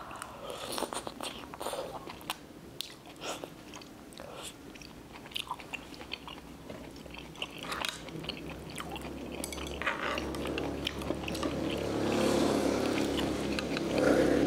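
A person chewing a mouthful of instant noodles and chewy rice cakes, with many short wet mouth clicks and smacks. Over the last few seconds a louder, steadier pitched sound builds up.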